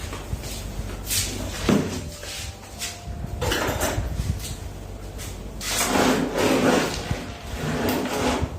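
Irregular knocks, clatter and scraping of materials and tools being handled as repair work on an air-conditioner filter begins, over a steady low hum.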